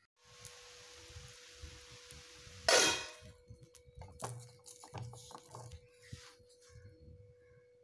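Metal cookware handled on a gas stove: a hiss, then a loud clank about three seconds in, followed by a few lighter clinks, over a faint steady tone.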